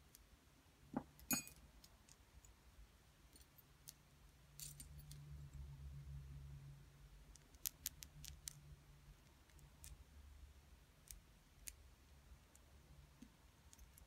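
Metal finger rings clinking and clicking against each other as they are handled. Scattered small clicks, the loudest two about a second in and a quick run of several a little past halfway.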